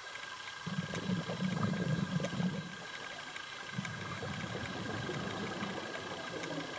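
Scuba divers' exhaled bubbles from open-circuit regulators, heard underwater: a low bubbling rumble in two breaths, the first starting just under a second in and the second about four seconds in, over a faint steady high tone.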